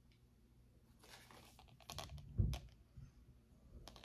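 Faint rustling and small clicks as jewelry and its packaging are handled, with one dull knock about two and a half seconds in.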